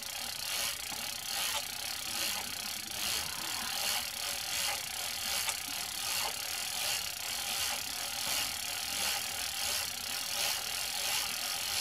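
Penn 130H single-speed fishing reel being cranked steadily by hand, its gear and ratchet mechanism clicking evenly as it winds 200-pound Dacron line off a second reel held under tight drag.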